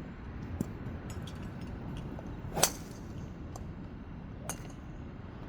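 Golf clubs striking balls: one loud sharp crack about two and a half seconds in, a fainter crack about two seconds later, and a few small distant clicks over a steady low background hum.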